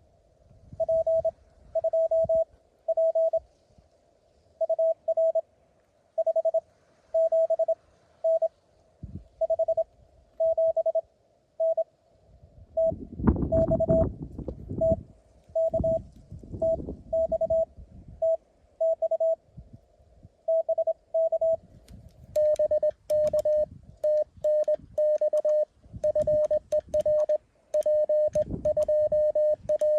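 Morse code tones from a Mountain Topper CW transceiver: a single pitch keyed on and off in dots and dashes. From about 22 seconds in the keying becomes faster and slightly lower in pitch, with sharp clicks alongside each element. A low rumble comes in about 13 seconds in.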